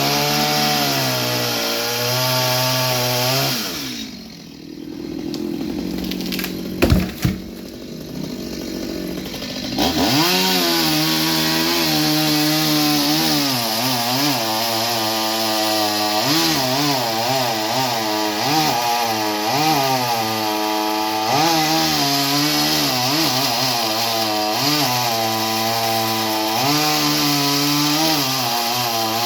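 Chainsaw cutting wood, its engine pitch dipping and recovering as the chain bites. About four seconds in it drops back to a lower idle, with two sharp knocks near the middle, then revs up again and goes back to cutting.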